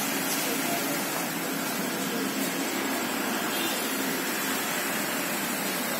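Steady, even background noise, a constant hiss and hum with no distinct events.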